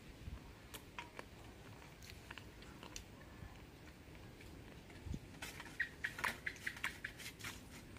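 Faint eating sounds of someone chewing crunchy grilled chicken feet. Scattered clicks at first, then a quick run of crisp clicks a little past halfway.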